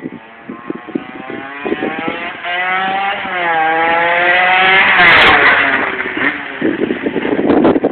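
Derbi Xtreme motorcycle revving as it rides up and passes close by. The engine pitch climbs as it accelerates, is loudest about five seconds in as it passes, then drops away.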